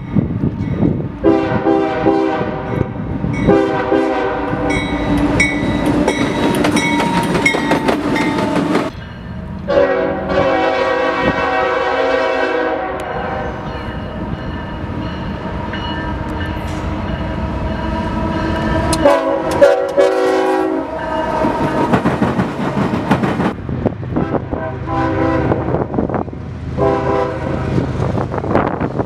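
Nathan Airchime K5HL five-chime horns on GE freight locomotives, sounding a run of long and short blasts across three clips joined with abrupt cuts about nine and nineteen seconds in. The locomotive's engine and the train's wheels on the rails run steadily underneath.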